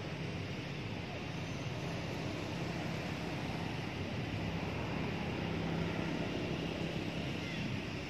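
Steady background noise with a low hum underneath and no distinct events.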